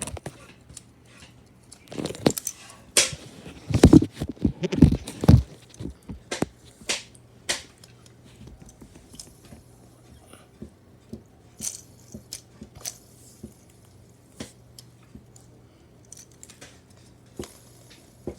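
Lego bricks being struck and broken apart by a spinning ceiling fan: a burst of loud plastic cracks and clatters about two to five seconds in, then scattered clicks and ticks of loose pieces. A steady low hum runs underneath.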